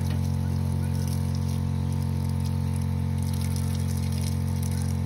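A small electric water pump hums steadily as it feeds the shower, with water spraying from a handheld shower head and splashing.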